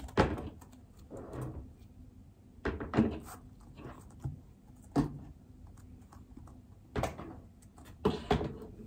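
Plastic pet carrier being handled, giving a string of separate knocks and thumps about every second or two, with a puppy moving around it.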